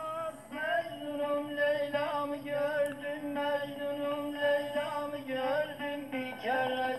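Oriental-style Greek music with a long, heavily ornamented vocal line held over a steady drone, and a new gliding phrase starting near the end.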